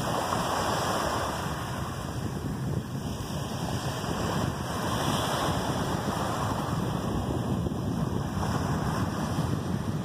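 Small waves of a calm sea washing onto a sandy beach: a steady rush that swells gently now and then, with wind rumbling on the microphone.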